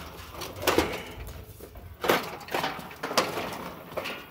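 A handful of short knocks and rustles, about five, spaced irregularly.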